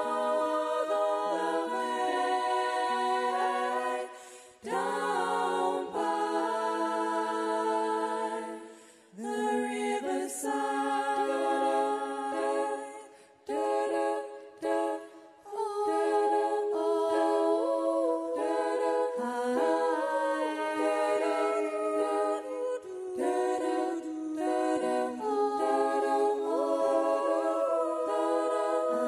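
Female a cappella vocal group singing in close harmony, several voices at once with no instruments, pausing briefly between phrases a few times.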